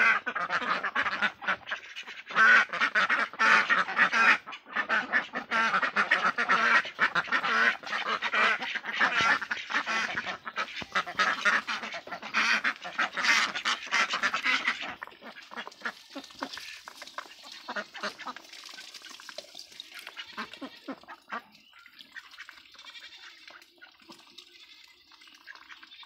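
A flock of domestic ducks quacking loudly and continuously, many birds calling over one another. About halfway through, the calling dies down to softer, scattered quacks.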